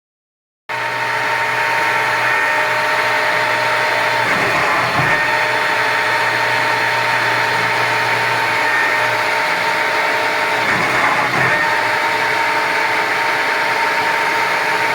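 Schütte SF26 S cam-controlled six-spindle automatic lathe running. It makes a loud, steady mechanical hum with steady whining tones, and the sound changes briefly twice, about six seconds apart. The sound cuts in abruptly under a second in.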